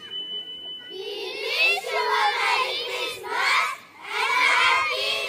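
A group of children shouting together in three or four loud bursts, many high voices at once, after a brief steady high tone in the first second.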